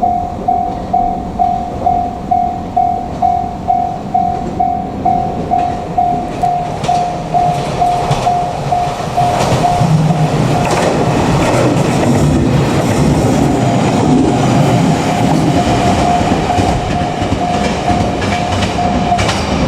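Japanese level-crossing warning alarm sounding its rapid repeating tone, about two and a half strokes a second. About ten seconds in, a JR Kyushu 817-series electric train runs over the crossing with wheels clacking on the rail joints, while the alarm keeps sounding.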